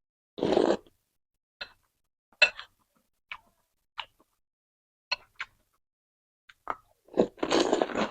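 Close-miked eating of noodle soup: a short slurp, then scattered wet mouth clicks and smacks of chewing, and a longer slurp near the end.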